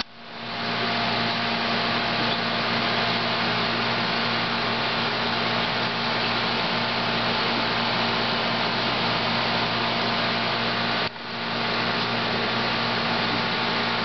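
Steady hum and rushing bubbling of an aquarium's air-driven sponge filter, its air pump running with a low hum under the stream of bubbles in the lift tube. The sound drops out sharply right at the start and again about eleven seconds in, then comes back within a second.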